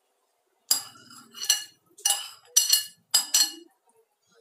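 Metal spoon clinking against a saucepan: about six sharp, ringing strikes.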